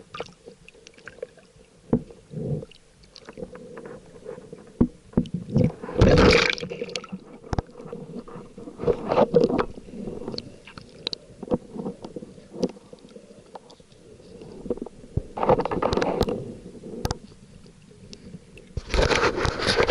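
Muffled underwater sound picked up through a camera housing: irregular clicks and knocks, with several louder bursts of rushing, gurgling water noise, about 6, 9, 16 and 19 seconds in.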